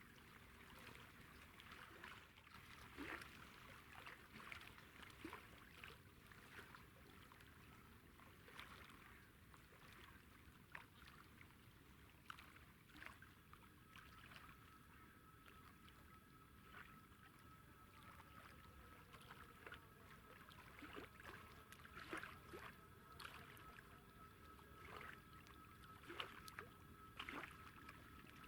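Near silence: faint night-time outdoor ambience with scattered faint clicks, and a faint steady high tone that comes in about halfway through.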